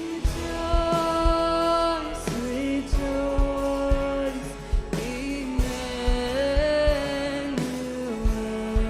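Live worship band: a singer holding long notes over guitar and drums, with a kick drum beating steadily underneath.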